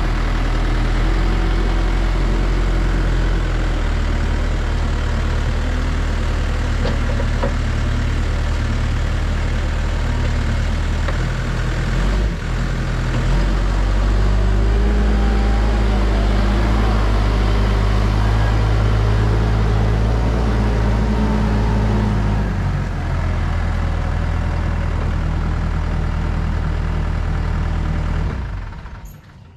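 JCB backhoe loader's diesel engine running steadily. It revs up under load for several seconds mid-way, settles back, and dies away near the end.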